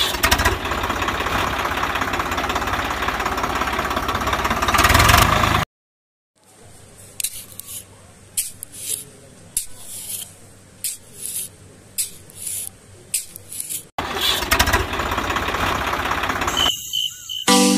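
Small motor of a miniature DIY model tractor running steadily, swelling just before it cuts off. Then a quieter stretch of light taps, roughly one a second, and the motor running again. Chime-like music comes in near the end.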